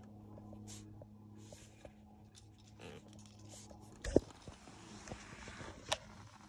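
Faint handling noises on a zero-turn mower: small clicks and taps, then a sharp thump about four seconds in and a couple of seconds of rustling as the rider gets onto the seat, with another click near the end. A faint steady low hum lies underneath; no engine is running.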